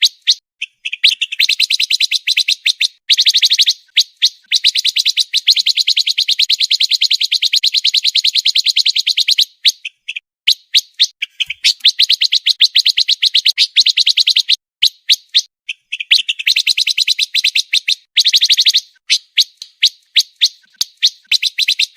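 Recorded song of a pancawarna songbird: long runs of fast, tightly packed trills of sharp repeated high notes, broken by short gaps and scattered single chirps.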